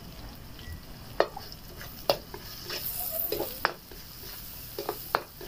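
Metal spatula scraping and clinking against a stainless steel wok, stirring garlic, red onion and a chicken bouillon cube as they fry in oil over a steady sizzle. The clinks come irregularly through the stir, the sharpest about one and two seconds in.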